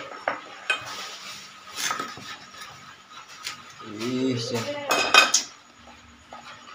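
Knife cutting through a martabak manis in its metal pan, the blade scraping and clinking against the pan, with a quick run of sharp clinks about five seconds in.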